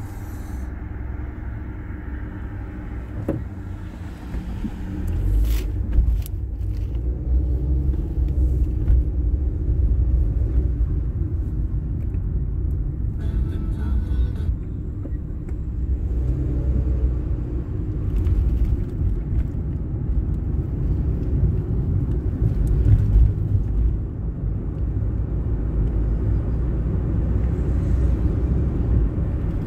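A car being driven, heard from inside the cabin: a steady low rumble of engine and road noise that grows louder a few seconds in as the car picks up speed.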